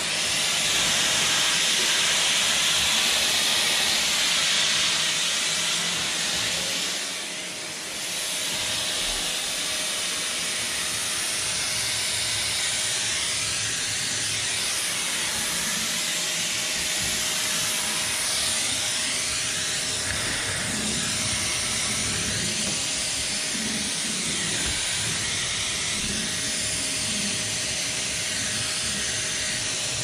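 Canister vacuum cleaner running, its suction hissing steadily with a thin steady whine beneath. The sound dips briefly about seven seconds in, then carries on a little quieter as the nozzle is pushed about.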